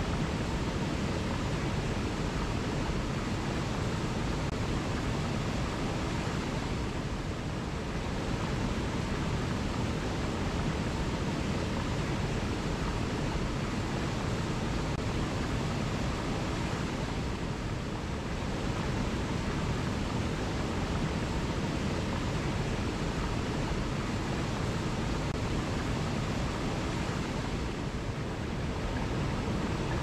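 Small forest waterfall and mountain stream rushing over rocks, a steady full rushing of water.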